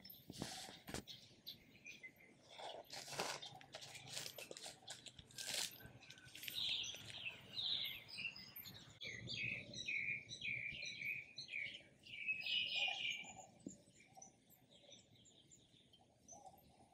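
A knife sawing through crusty rye bread on a wooden board, a few crunching strokes in the first seconds. Then birds chirping, many short calls, loudest about twelve seconds in.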